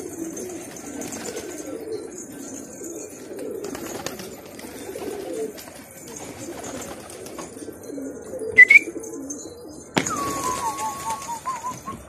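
Many domestic pigeons cooing together, steadily. About eight and a half seconds in there is a short, sharp rising squeak, the loudest sound. Near the end there is a click, followed by a wavering whistle.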